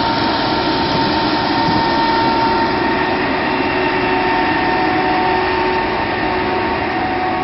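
Claas Lexion 550 combine harvester harvesting corn: its engine and threshing machinery make a loud, steady mechanical noise with several steady whining tones over it.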